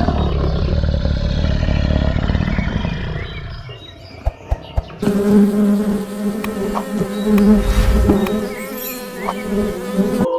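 Insect buzzing: a steady, even drone from about halfway through that stops abruptly near the end, following a low rumbling sound in the first few seconds.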